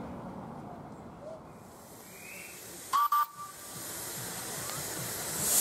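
Miniature steam locomotive whistle giving two short toots about three seconds in, followed by steam hiss from the open cylinder drain cocks that grows louder as the engine starts away.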